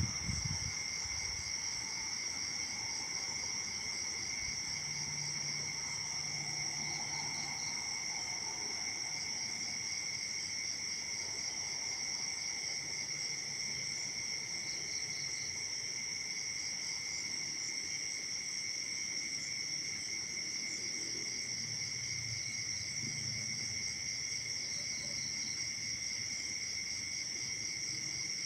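Chorus of crickets and other insects, a continuous shrill drone in two steady pitches, one high and one lower.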